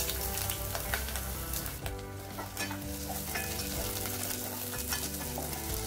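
Sliced onion and garlic sizzling in hot oil in a pot, stirred with a spatula.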